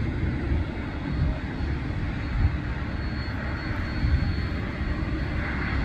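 Lockheed C-130 Hercules's four turboprop engines running on a low approach: a steady, deep rumble, with a higher-pitched whine coming in near the end.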